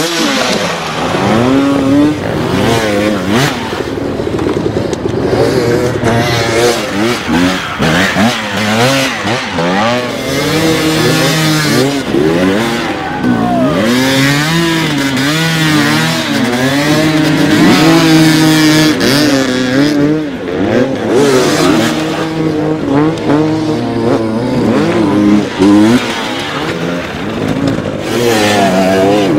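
Several dirt-bike engines revving, overlapping, their pitch rising with each burst of throttle and falling as it is released, at times held steady at high revs.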